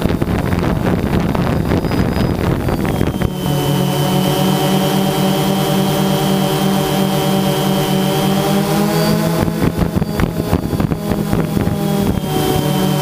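DJI Phantom 2 quadcopter's motors and propellers buzzing steadily, picked up by the onboard camera's microphone, with a slow pulsing beat in the hum. Wind buffets the microphone for the first three seconds and again around ten seconds in, and the buzz rises slightly in pitch about nine seconds in.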